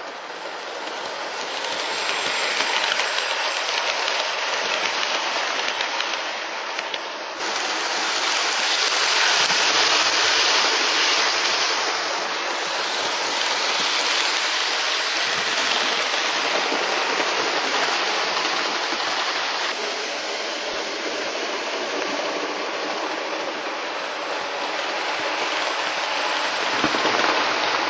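Hornby OO gauge live steam locomotive running on its track: a steady hiss of steam and running noise, loudest about ten seconds in.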